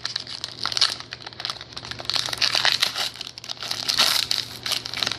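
Trading card pack wrappers crinkling as they are handled, in an irregular run of rustles.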